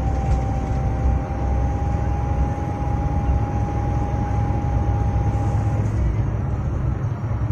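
A motor vehicle running: a steady low rumble with a thin steady whine over it that stops about six seconds in.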